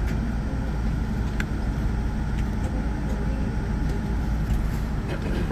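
Steady low rumble inside the cabin of a Boeing 787-9 airliner taxiing with its engines at low power, with a couple of faint clicks.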